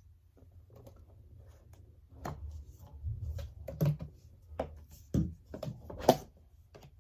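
A loose run of light clicks and knocks over a low steady hum, starting about two seconds in and loudest near the end, like things being handled or set down.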